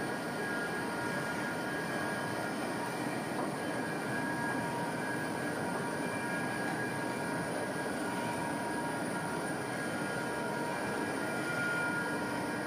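Wood pellet mills running, with their drive motors: a steady, dense machine noise with a faint high steady hum over it.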